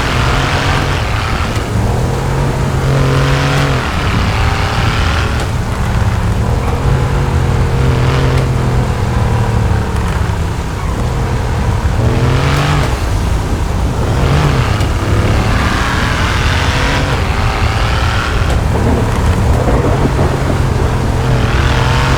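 Mercedes car engine running hard and revving, its pitch climbing for a second or so and then dropping, again and again, over a steady low drone.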